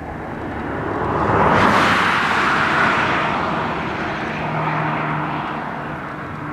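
Firefighting air tanker passing low overhead, its engine noise swelling to a peak about two seconds in and then slowly fading as it flies away.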